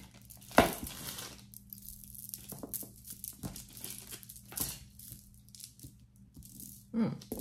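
Plastic zip bag crinkling and rustling as jewelry is handled, with one sharp knock about half a second in and scattered small clicks of beads and metal pieces.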